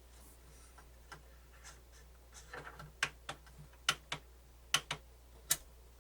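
Sharp mechanical clicks from a cassette deck's tape-transport mechanism, a few scattered at first and then in quick pairs about once a second. The deck is running without drive belts and is clicking without completing its mode changes.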